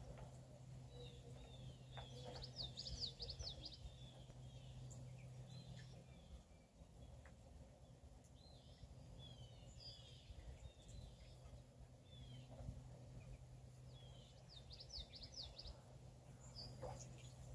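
Muscovy ducklings peeping: faint, high-pitched chirps scattered throughout, with quick flurries of rapid peeps about two and a half seconds in and again near fifteen seconds.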